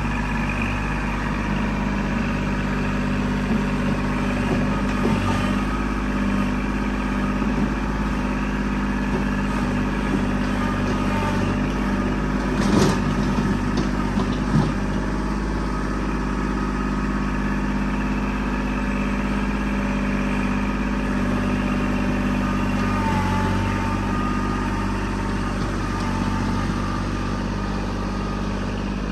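Kubota L2501 compact tractor's three-cylinder diesel running steadily, with a couple of short knocks about halfway through.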